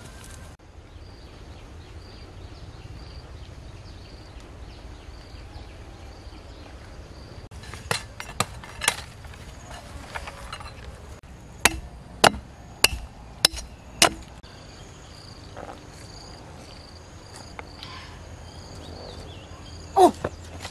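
Machete chopping into a green coconut's husk: a few lighter cuts, then five sharp strikes about half a second apart. Faint repeated high chirps sound behind them.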